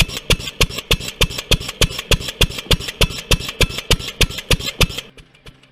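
Engine running with a deep, rhythmic thump-thump of evenly spaced combustion pulses, a few a second; the beat stops about five seconds in, leaving a faint hum.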